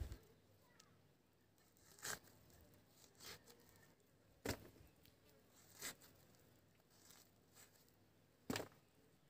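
Bottle gourd being sliced against a curved floor-mounted blade (bonti): about six short crisp cuts spread unevenly over nine seconds, with near silence between.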